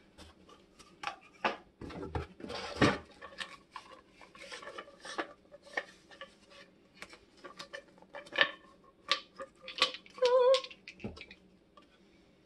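Small glass essential-oil bottles clinking and tapping together, with rustling and knocking of packaging as items are handled: a string of separate clicks and clinks.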